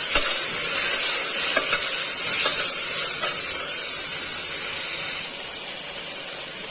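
Onion, tomato and spice masala sizzling in hot oil in a pressure cooker, with a spoon stirring and scraping now and then. The sizzle eases a little about five seconds in.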